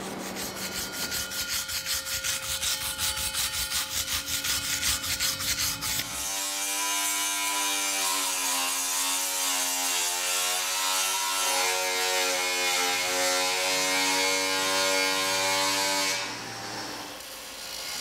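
Abrasive work on the new bronze bell's outer surface to give it its shine. First comes a rhythmic rasping rub, about four strokes a second. About six seconds in a hand-held rotary power tool takes over, its motor whine and the hiss of the spinning disc on the metal sagging in pitch and recovering as it is pressed on, before it drops away near the end.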